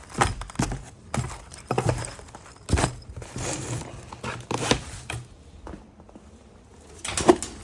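Cash collection bags heavy with coins being handled and set down: a string of irregular knocks and thumps with rustling between them, the loudest knock near the end.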